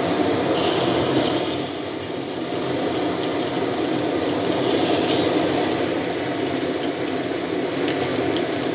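Hot oil in a wok hissing as a piece of fish fillet goes in about half a second in, then frying with a crackling sizzle over a steady low rumble.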